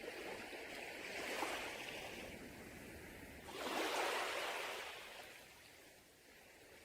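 Sea waves washing onto a beach. One wave of surf rises at the start, a bigger wave breaks about three and a half seconds in, and then it recedes and quiets toward the end.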